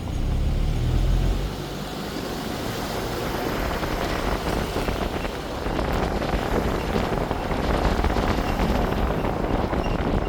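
Car driving: steady road and wind noise, with a heavy low rumble in the first second or so.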